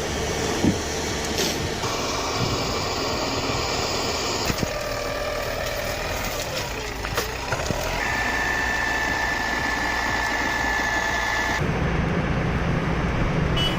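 Heavy diesel machinery engines running steadily, in several short clips that cut abruptly from one to the next. One clip holds a steady high whine.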